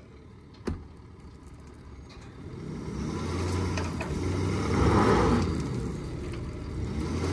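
Pickup truck engine revving under load as it strains to pull a loaded gooseneck dump trailer on loose dirt, struggling for traction. The engine sound builds from about two and a half seconds in and swells twice, after a single short knock about a second in.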